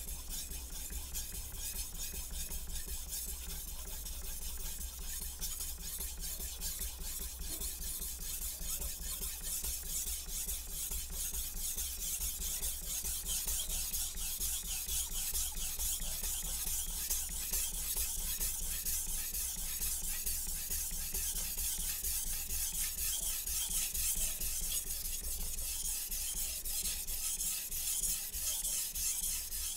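A Shun chef knife's steel edge scraped in quick, steady back-and-forth strokes across a wet 3000-grit splash-and-go whetstone: a rhythmic gritty rasping that grows louder toward the end and cuts off suddenly. The knife is fairly dull and the stone is grinding metal off the edge.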